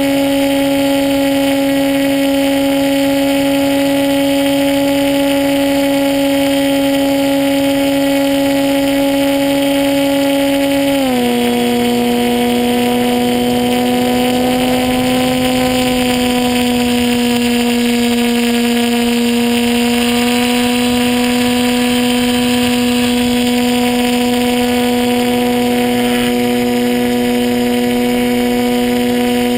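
RC model plane's motor and propeller running steadily at high speed, heard close up from the onboard camera as a constant drone; about eleven seconds in the pitch drops a step lower and then holds steady.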